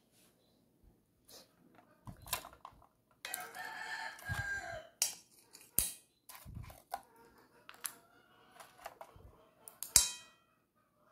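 Baked mussel shells clinking against a metal baking tray and a plate as they are picked up and moved, a few sharp clicks with the loudest near the end. About three seconds in, a rooster crows in the background for a second and a half or so.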